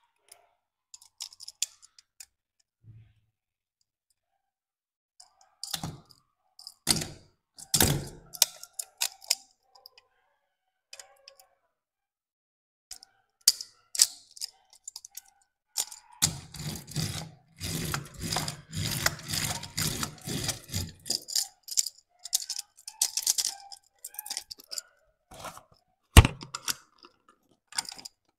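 Small plastic clicks and rattles of a toy Mitsubishi Fuso Super Great car transporter being handled, its trailer frame and little cars knocking together, with a dense stretch of rapid clattering about two-thirds through and one sharp click near the end.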